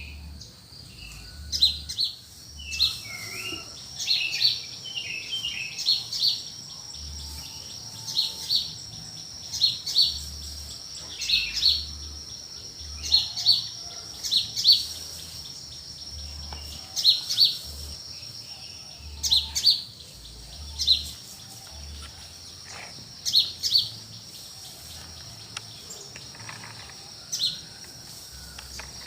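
Countryside dawn chorus: birds repeating short, high chirps every second or two, with a few warbling calls at the start. Under them, a steady high insect drone such as crickets comes in about two seconds in.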